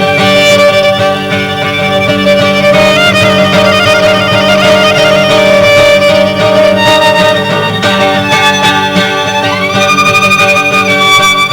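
Violin and guitar playing together: the violin carries the melody with a wavering vibrato passage, then slides up into a long held high note near the end, over steady guitar accompaniment.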